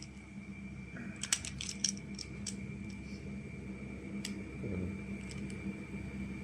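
Plastic magnetic building tiles clicking and clacking as they are handled and snapped together: a quick cluster of clicks about a second in, then a few scattered single clicks, over a faint steady hum.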